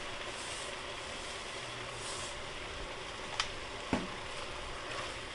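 Ground beef and peppers sizzling steadily in an enamel Dutch oven as a wooden spoon stirs through them, with two short knocks about three and a half and four seconds in.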